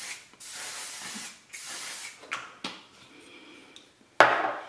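Setting spray misting from a pump bottle in about three short hisses, followed by a couple of light clicks. Near the end comes a sharp clack, the loudest sound.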